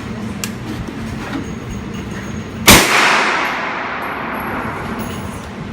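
A single gunshot from a 9mm pistol-calibre rifle, about two and a half seconds in, sharp and very loud, with a long echoing tail that fades over a couple of seconds.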